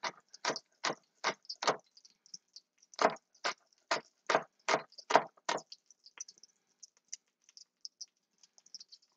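Chef's knife thinly slicing scallions against a wooden cutting board: a steady run of knocks, about two or three a second. There is a short pause about two seconds in, and the chopping stops about six seconds in, leaving only faint light ticks.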